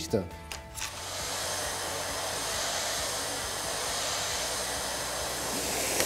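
AEG APF 6150 PowerForce 700-watt canister vacuum cleaner running, coming in about a second in and then holding a steady, even airy rush.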